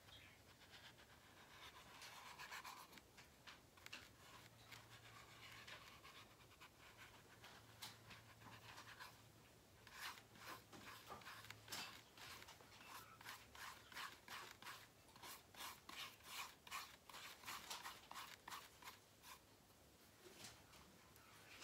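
Faint rubbing and scratching of a paintbrush working white paint onto a paper journal cover. From about ten seconds in it turns into a run of quick, light, irregular taps as the brush is dabbed on.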